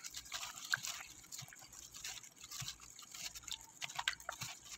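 Wet squelching and irregular small clicks of a plastic-gloved hand squeezing and turning raw chicken pieces in a liquid marinade in a bowl.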